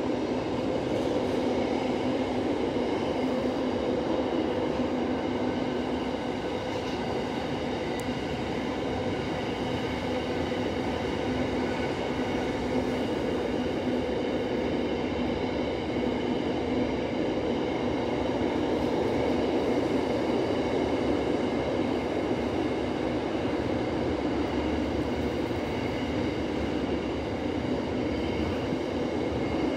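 Train noise: a steady rumble with several constant humming tones that hold without change.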